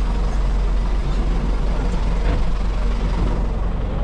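Large farm diesel engine running steadily with a heavy, low, even sound and no change in speed.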